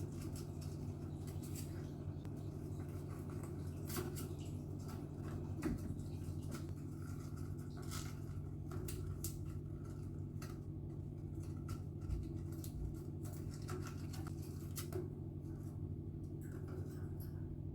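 Quaker parrot picking at and chewing a cardboard tube: irregular small clicks, taps and scratches, over a steady low background hum.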